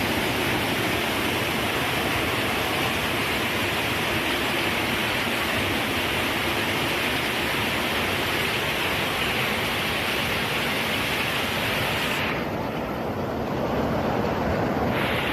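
Floodwater rushing in a steady, loud wash of noise. About twelve seconds in it turns duller for a few seconds before the full hiss comes back.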